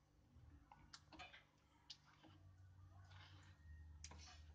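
Faint clicks and scrapes of a steel spatula against a steel kadhai as thick molten jaggery and ghee are stirred, a few separate ticks over a low steady hum.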